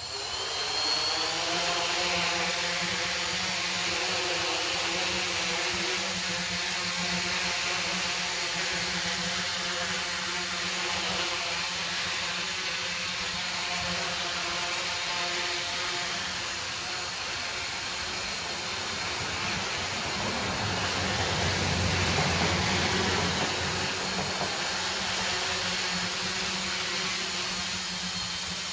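A tricopter's electric motors and propellers spinning up abruptly and running with a steady buzzing whine made of several pitches at once, swelling louder for a couple of seconds about three-quarters of the way through.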